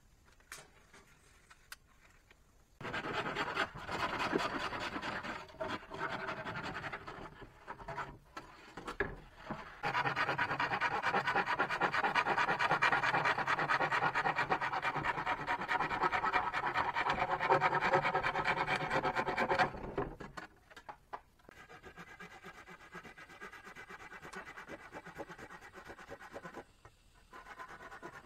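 A tool scraping on wood, rough and continuous. It starts about three seconds in, breaks off briefly, runs loud and steady for about ten seconds, then drops to a fainter scraping.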